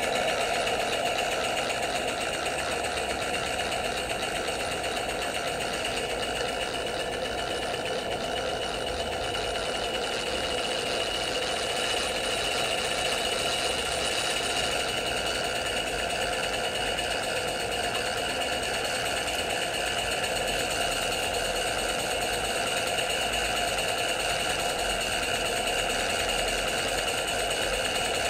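Model Dolbeer steam donkey engine running steadily, winding in a log on its winch cable.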